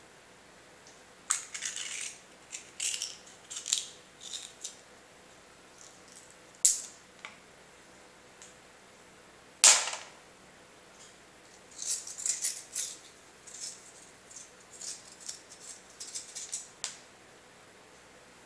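Hard plastic mussel-shell fishing lure being prised open with a metal tool: irregular clicks and short scratchy scrapes. One sharp snap about ten seconds in, as the two shell halves come apart.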